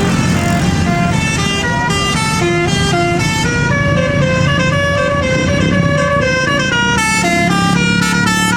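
Indonesian 'telolet' musical bus horn playing a fast multi-note melody of short stepped tones, over the low running of a tour bus engine climbing a hill.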